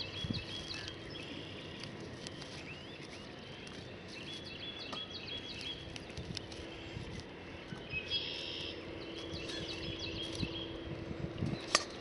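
Small birds singing: repeated high chirping trills in groups every second or two, over a faint steady low hum. A sharp click near the end.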